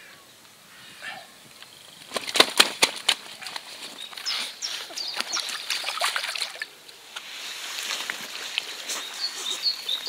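Common carp splashing and slapping its tail in shallow river water as it is released, with a quick run of sharp slaps about two seconds in, then churning water.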